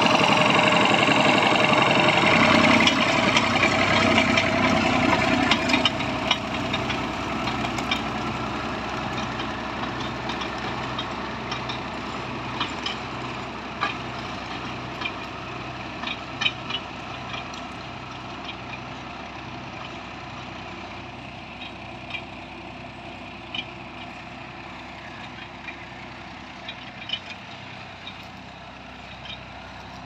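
1964 Massey Ferguson 35 tractor engine running under load as it pulls a disc plough, fading steadily as the tractor moves away. Scattered sharp knocks come through over the engine.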